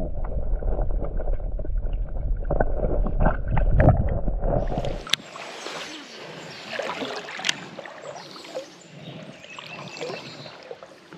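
Muffled, low water sloshing picked up by a camera held under the creek's surface. About five seconds in it cuts abruptly to open-air sound: quieter water swishing and lapping with a few sharp clicks.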